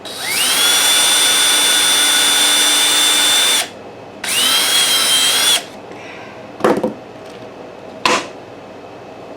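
Small electric drill boring a hole in a wooden top bar: the motor winds up to a steady high whine for about three and a half seconds, stops, then runs again for just over a second. Two short knocks follow near the end.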